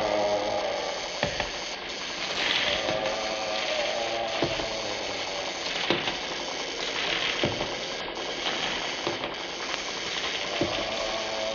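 Laboratory sound effect from an old horror sound-effects record: a steady crackling electrical hiss with sharp heavy knocks about every second and a half, and a pitched drone that swells and fades several times.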